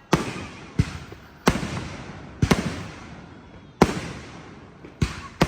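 Fireworks going off: about seven sharp bangs at irregular intervals of roughly half a second to a second and a half, each trailing off in a fading echo.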